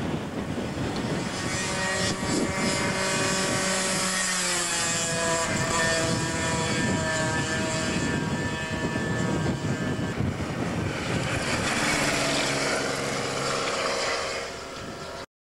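Sport motorcycle engines running hard as the bikes ride past through the bends, the engine pitch dropping and climbing again as they go.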